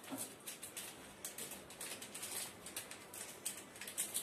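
Irregular light crackling and rustling, several small clicks a second, as a child's hands work a small ingredient over a steel bowl.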